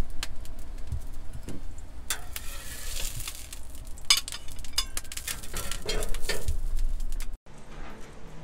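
Gyoza frying in a hot pan: sizzling with sharp clinks and scrapes of metal utensils, the sizzle swelling for a second or so about two seconds in. The sound cuts off abruptly near the end.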